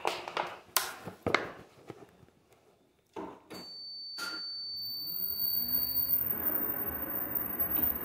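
A few clicks and knocks, then a stair lift starting about three seconds in: a steady high beep, then its electric motor winding up in pitch and running until it stops abruptly at the end.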